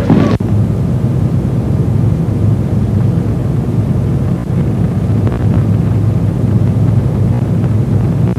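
A body landing on the mat in an aikido breakfall, a short loud slap at the very start, over a steady low rumble of microphone noise.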